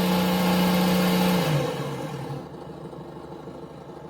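ESS Dual Plus RC sound module playing its simulated engine sound through a small speaker, driven by the throttle trigger: the engine note rises, holds steady for about a second and a half, drops back, then settles into a fading idle.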